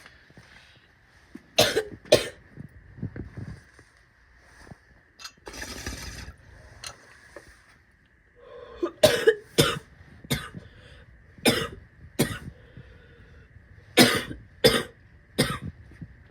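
A woman coughing in short fits: two sharp coughs, then after a longer rasping, noisy stretch, three more fits of two or three coughs each.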